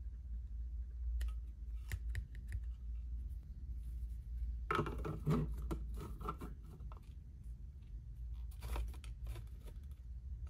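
Plastic clicks, taps and light clatter as a Kicker DSC650 6.5-inch coaxial car speaker and its plastic grille are handled and fitted together, densest about five seconds in. A steady low hum runs underneath.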